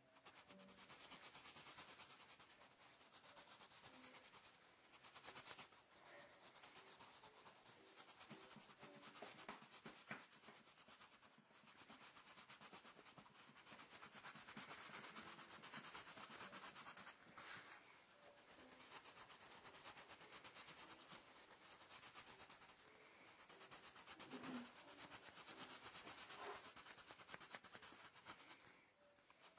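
Pencil scratching on paper in rapid back-and-forth strokes, shading in a drawing, breaking off briefly every few seconds.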